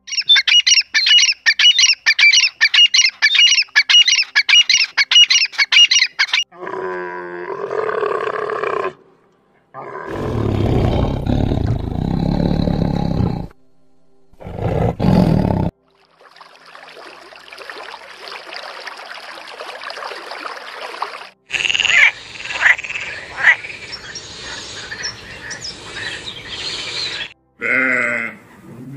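A run of animal calls one after another: a red-legged partridge calling in quick repeated notes, about two a second, for the first six seconds; then a tiger's deep roars and growls about ten to sixteen seconds in; other animal sounds follow, and a goat bleats once near the end.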